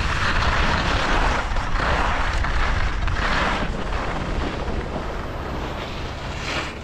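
Skis scraping and hissing over packed snow, rising and falling in swells, with wind rumbling on a GoPro action camera's microphone. The scraping eases somewhat near the end.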